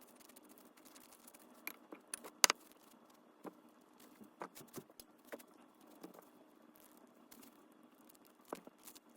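Scattered clicks and light knocks of small hard objects being handled, with one sharper knock about two and a half seconds in, over a faint steady hum.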